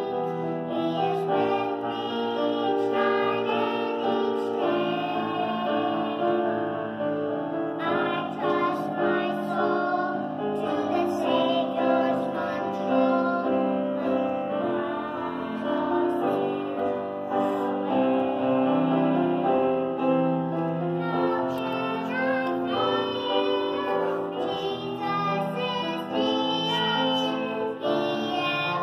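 Two young girls singing a duet into handheld microphones over a musical accompaniment, without a break.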